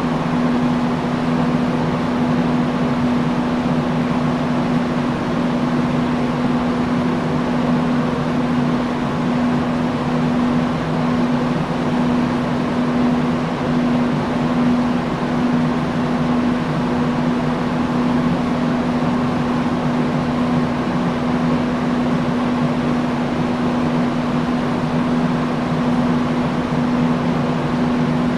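Industrial fan running steadily: an even rush of moving air under a constant motor hum.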